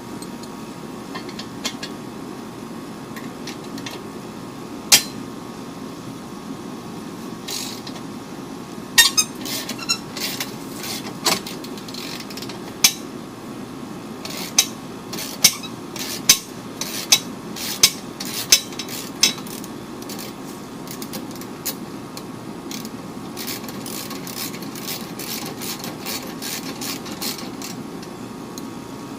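Hand tools on metal working a seized exhaust bolt loose: scattered sharp clicks and knocks, with a run of about seven strikes roughly two-thirds of a second apart in the middle.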